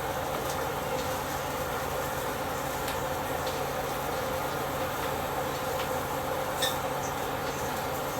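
Steady hum and hiss of kitchen background noise, with a few faint clicks, the clearest about six and a half seconds in.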